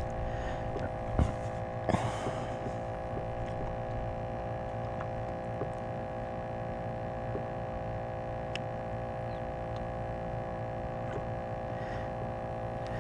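A steady hum made of several fixed tones, unchanging throughout, with a couple of faint clicks about one and two seconds in.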